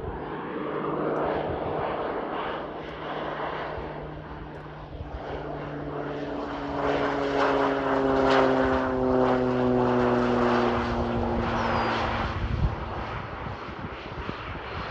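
Low-flying agricultural spray plane making a spraying pass. Its engine and propeller drone builds to its loudest about halfway through, then drops in pitch as the plane goes by and fades.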